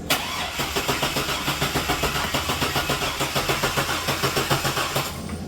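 Starter cranking the 2000 Chevy Blazer ZR2's 4.3-litre V6 over at an even pulse of about five beats a second for about five seconds, then stopping. The engine turns over but does not fire: a crank-no-start.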